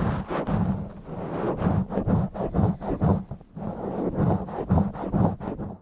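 Fingers scratching and rubbing directly on a bare, uncovered microphone: rough, rapid, irregular strokes with a heavy rumble, stopping abruptly at the end.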